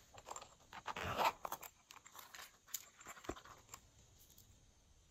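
Slime being squished and worked by hand, making a run of small sticky clicks and crackly pops. The pops are thickest about a second in and die away after about four seconds.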